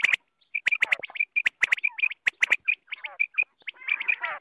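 Common quail calling, a fast, busy run of short sharp clicking notes and high chirps, with several calls overlapping near the end.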